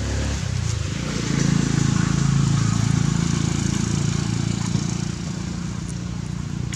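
Low motor-vehicle engine hum that swells about a second in and eases off after about five seconds, over a steady outdoor hiss.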